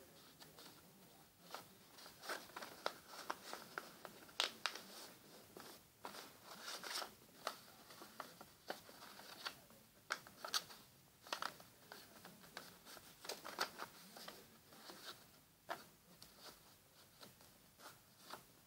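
A sheet of paper being folded and creased by hand into a paper airplane: faint, irregular crinkles and crisp rustles, a few every second.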